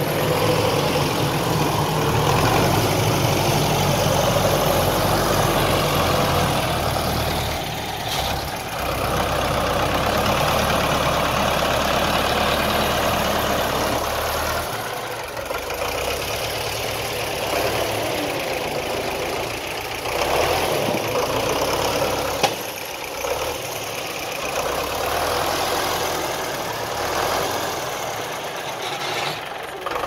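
Farm tractor engine running in deep mud, with a heavy low rumble that eases about halfway through.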